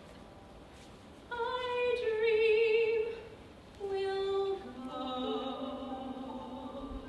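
A woman singing slow, held notes with vibrato in a musical-theatre ballad, coming in about a second in after a soft lull, with a lower sustained note and quieter pitches above it near the end.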